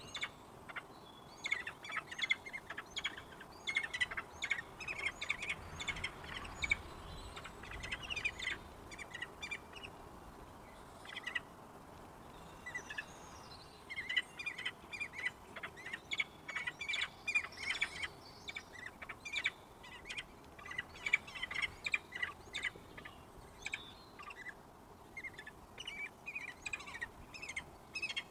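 Peregrine falcon chick giving high, short begging chirps in rapid bursts while being fed, with a sparser stretch about ten seconds in.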